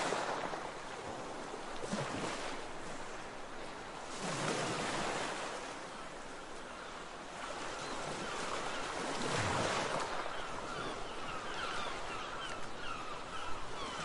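Water washing on a shore in slow surges that rise and fall every few seconds. From about halfway through, short bird calls repeat several times a second over it.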